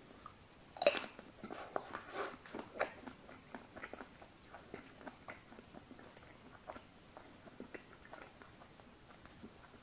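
Biting into a pink-coated ice cream bar: a sharp crackly bite about a second in, then chewing with small crunches of the coating and wet mouth sounds that grow softer after about three seconds.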